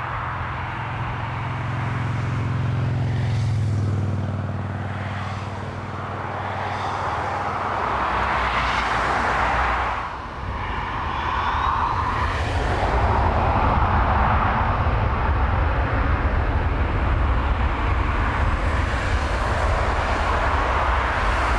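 Airbus A340's four jet engines at low thrust with a steady hum as it taxis. Just after ten seconds a rising whine is followed by a louder, steady engine rumble as the engines spool up for takeoff.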